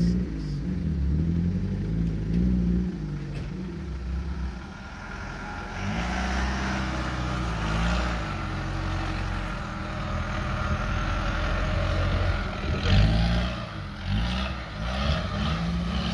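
Land Rover Defender 300Tdi's 2.5-litre four-cylinder turbo diesel engine driving the pickup over rough ground, its revs rising and falling several times.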